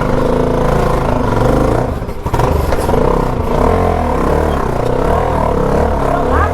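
Motorcycle engine running and revving, its sound dipping briefly about two seconds in.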